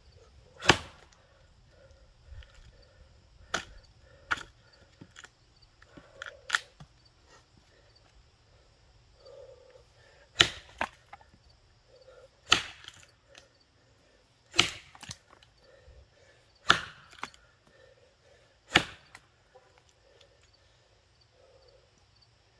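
Axe blows biting into a box elder log being bucked by hand, each a sharp chop into the wood. A few lighter strikes come first, then about halfway through a steady run of five hard blows about two seconds apart.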